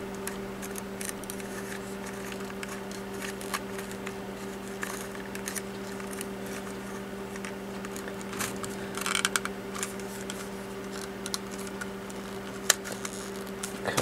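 Handling noise from a small plastic USB desk vacuum and its cord: scattered light clicks and rustles, with a short burst of rustling about nine seconds in, over a steady low hum.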